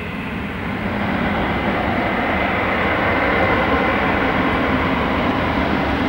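Gulfstream G550's twin Rolls-Royce BR710 turbofan engines running as the jet rolls along the runway after touchdown. The sound grows louder over the first second, then holds steady, with a thin high whine over the jet noise.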